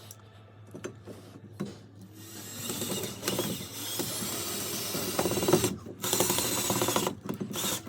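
Power drill driving a screw into the wall, starting about two and a half seconds in and running again after a brief pause near the six-second mark.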